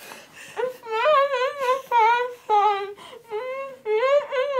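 A young woman whimpering in a string of short, high, wavering cries through gauze held to her mouth, just after having her wisdom teeth out.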